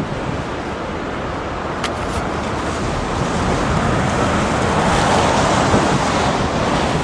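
Strong wind rushing and buffeting the microphone, a steady noisy roar that grows louder in the second half, with one brief click about two seconds in.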